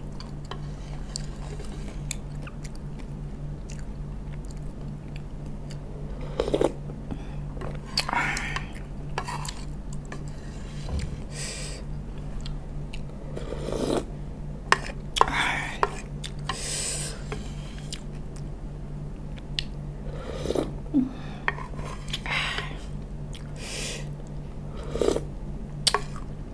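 Close-miked eating of a vegetable salad in sauce: a wooden spoon and chopsticks clicking and scraping in a bowl, spoonfuls of sauce slurped, and chewing, in scattered short bursts. A steady low hum runs underneath.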